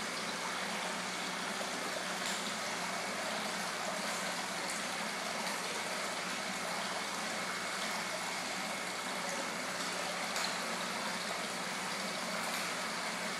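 Steady rush of falling and churning water from an indoor koi pond's waterfall and jet return, with a few faint ticks now and then.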